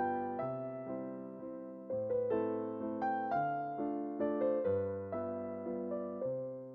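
Background music: a soft piano piece, notes struck one after another over held chords, each note fading away.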